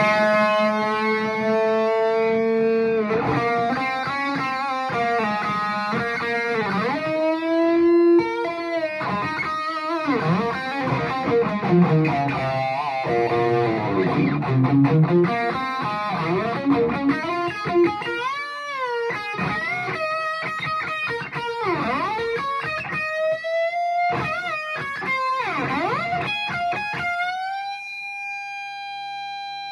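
Gibson Les Paul R9 electric guitar played through a 3rd Power Kitchen Sink amp head: lead lines with string bends and vibrato, ending on a long held note.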